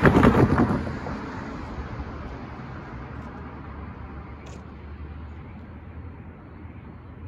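A car drives close past, loudest in the first second, then fading away over the next couple of seconds. A steady low rumble stays underneath.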